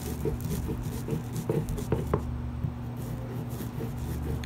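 Stone metlapil crushing cacao beans against a stone metate in short, quick strokes, about four a second, breaking the beans into small pieces.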